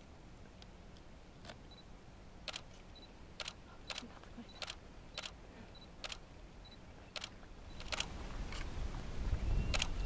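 A series of sharp, irregular clicks, roughly one a second, over a low rumble that grows louder near the end.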